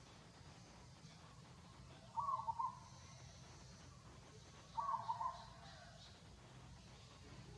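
An animal call sounds twice, about two and a half seconds apart. Each call is a short, pulsing call of about half a second at a mid pitch.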